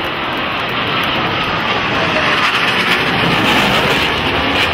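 Blue Angels F/A-18 Hornet's twin jet engines in a low, close pass: a loud, rushing jet noise that grows louder as the jet approaches, peaking near the end.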